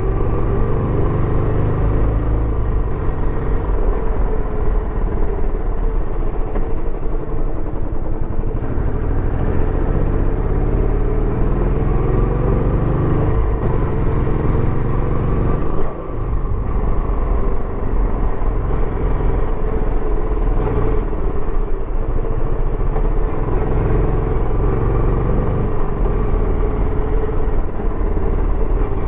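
Royal Enfield Bullet 350X's single-cylinder engine running steadily through its stock exhaust while riding, with a short drop in level about halfway through as the throttle eases.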